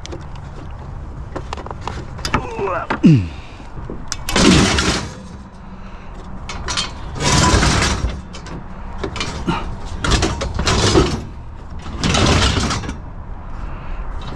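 Metal scrap being handled and loaded: a small pedal exerciser carried and set down on a pile of metal shelving and frames, with repeated clanks, rattles and scrapes, and a short falling squeak about three seconds in.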